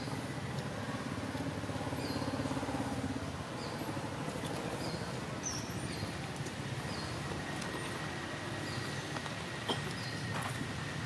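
Outdoor ambience: a steady low rumble with short high chirps repeating every second or so, and a faint steady high tone partway through.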